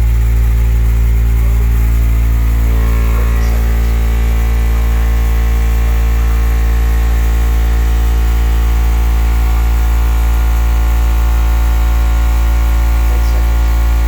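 Car audio subwoofers playing a steady, very loud low bass tone for a timed dB drag (sound-pressure) run. It holds unchanged without a break.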